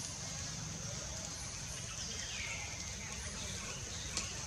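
Outdoor ambience: a steady high-pitched insect drone over a low rumble, with a short call that falls in pitch about two seconds in and a light tick near the end.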